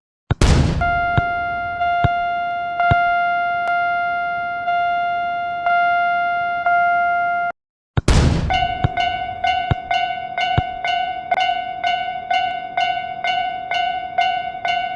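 Japanese railroad crossing warning bell ringing with an electronic ding. At first it strikes slowly, about once a second. After a brief break and a short rushing noise about halfway through, it rings fast, about three dings a second.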